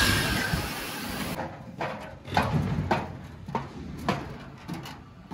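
Footsteps climbing a steel-framed staircase with wooden treads, a knock of each step nearly twice a second. They follow about a second of loud rushing noise that stops suddenly.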